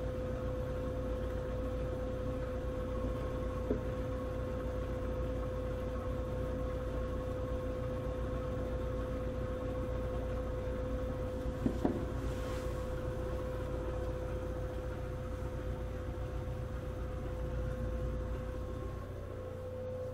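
Steady low machine hum with a constant whine, and a couple of light knocks.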